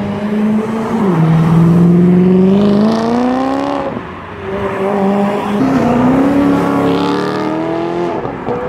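Wiesmann GT sports car accelerating hard, its engine note climbing in pitch and dropping sharply at each upshift, then climbing again. This happens in two separate runs, with a gear change about a second in and another around the middle of the second run.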